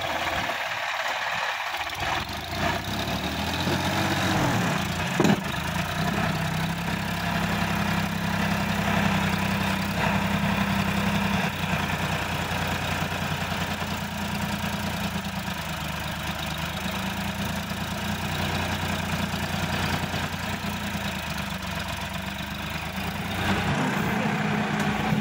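Sonalika DI-50 RX tractor's diesel engine working hard as it climbs out of the mud onto a bank, its pitch rising over the first few seconds and then holding steady under load. There is one sharp knock about five seconds in, and the engine sound cuts off suddenly at the end.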